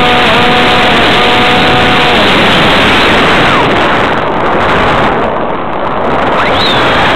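Onboard audio from a Multiplex EasyStar RC plane in flight: loud wind rush over the camera's microphone, with the electric pusher motor's steady whine for the first two seconds. The rush eases for a moment around five seconds in, and a brief rising whine comes near the end.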